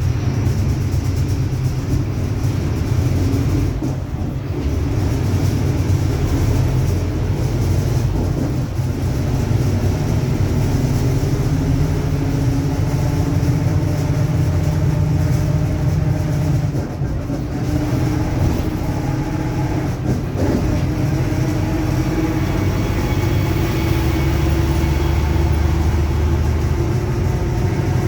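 Mercedes-Benz OF-1721 BlueTec5 bus under way, with steady engine and drivetrain running and the differential growling, a whine whose pitch drifts up and down with road speed.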